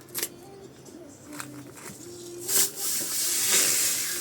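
Protective plastic film being peeled off a Corsair 3000D PC case: a few sharp crackles and snaps, the loudest about two and a half seconds in, then a long continuous ripping hiss as the film tears away.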